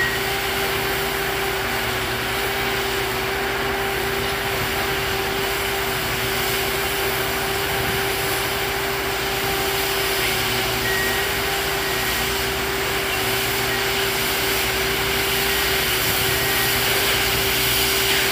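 Railroad maintenance-of-way machine running steadily, with a constant whine over the noise of its rotating brushes sweeping ballast off the ties and rail.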